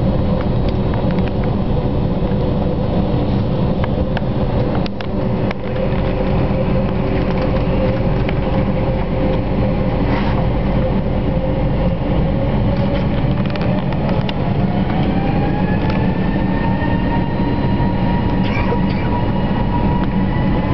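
Cabin noise of an Airbus A321 beside the wing: the jet engines run at low power with a steady rumble and hum as the airliner taxis onto the runway. About two-thirds of the way in, a whine starts rising in pitch as the engines spool up for the takeoff roll.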